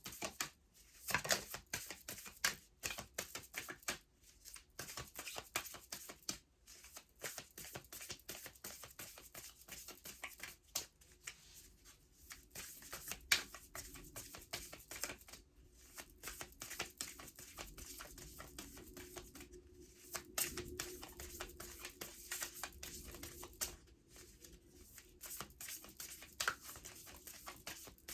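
An oracle card deck being shuffled by hand: a long, continuous run of quick, irregular clicks and flicks of card against card.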